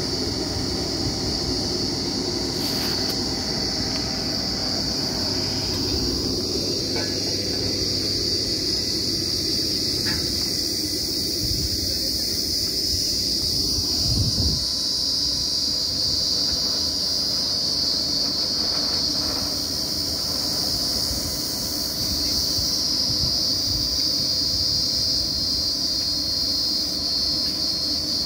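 Truck-mounted borewell drilling rig's engine running steadily as a low rumble, under a continuous high-pitched insect drone. A brief louder thud comes about halfway through.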